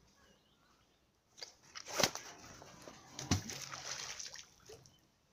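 A fishing magnet on a rope thrown into a river, hitting the water with a splash about two seconds in, followed by sloshing and a duller knock about a second later.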